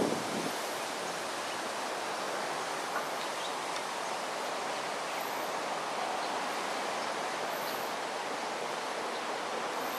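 Steady outdoor ambience: an even hiss, with a few faint, short, high chirps now and then.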